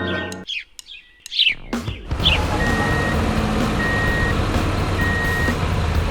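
A heavy truck's engine starts running and its reversing alarm beeps three times, each beep about half a second long and a little over a second apart. Birds chirp over the start, just after a musical passage cuts off.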